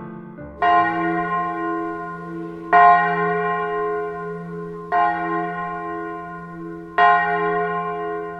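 A bell tolling slowly, struck four times about two seconds apart, each stroke ringing on and fading into the next.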